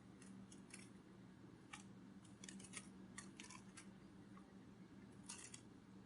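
Near silence: faint, scattered short clicks, some in quick little clusters, over a low steady hum.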